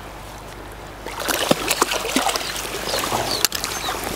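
Barbel splashing at the surface as it is drawn into a landing net: a run of short, sharp splashes beginning about a second in, over the running water of the river.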